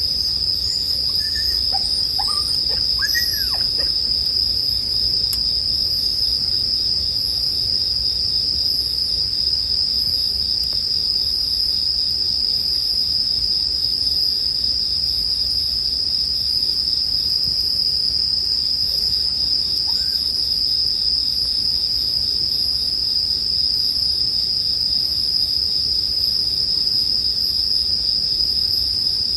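Bell crickets (suzumushi) singing in a continuous chorus, a steady high ring with a faster pulsing shimmer above it. A few short rising-and-falling chirps sound about two to three seconds in.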